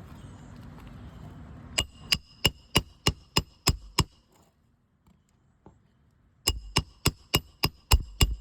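Roofing hammer striking a steel roof snake to drive roofing nails under a shingle: two runs of quick blows, about three a second, each with a short metallic ring.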